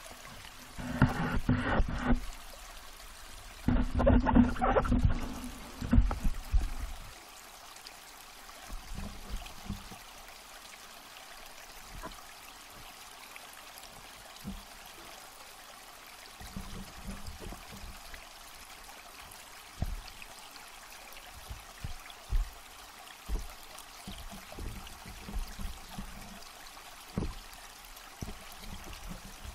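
Water gurgling and sloshing around a submerged camera in three loud bursts during the first seven seconds, then a steady underwater hiss with scattered dull low bumps.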